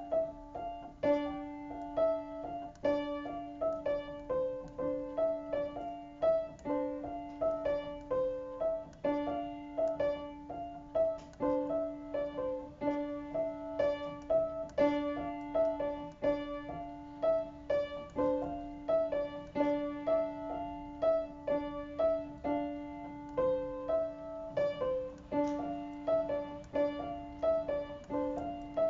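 Solo piano playing a calm piece: a low note struck again every couple of seconds and held beneath a line of shorter, higher notes.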